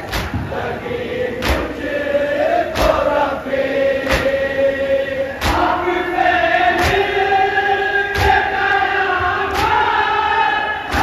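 A group of men chanting a noha together in unison. Their chest-beating (matam) lands as a sharp slap in time about every 1.4 seconds, eight strikes in all.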